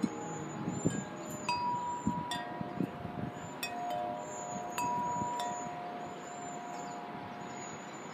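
Tubular wind chime with long metal tubes knocked by its disc striker in the breeze: several clear strikes in the first five seconds, each ringing on in long, slowly fading tones. Wind rumbles on the microphone underneath.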